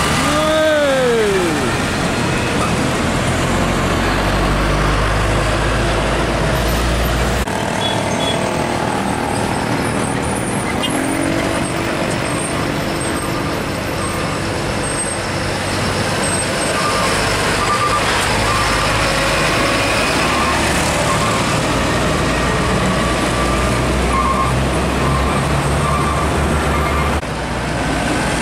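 Heavy diesel trucks drive past with their engines running, amid general road traffic noise. In the first second or two a pitched sound drops steeply.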